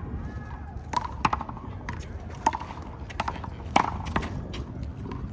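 One-wall handball rally: a rubber handball is slapped by hand and struck against the wall, making about seven sharp, irregularly spaced smacks with a short ring. The loudest comes about two-thirds of the way through.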